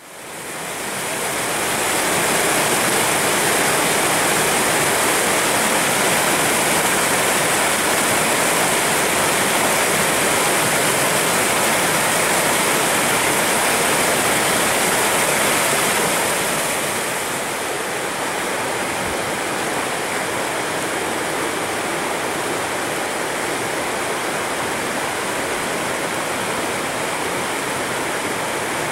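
The Burnt River running high and fast in spring flow: a steady rush of whitewater over rocks. It fades in over the first couple of seconds and drops a little in level about 17 seconds in.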